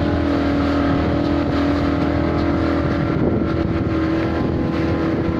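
Motorboat engine running steadily, a constant drone with several held tones and no change in speed.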